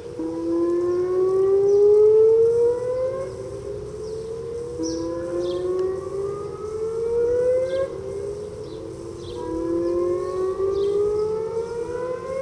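Several outdoor tornado warning sirens sounding at once in a repeating "woop": each tone rises slowly for about three seconds, then drops back and rises again. The loudest siren is close by, others are farther off, and their rises overlap out of step.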